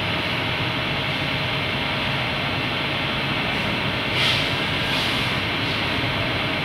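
Centrifugal oil dryer running, its spinning basket and motor giving a steady whir, with a brief louder hiss about four seconds in.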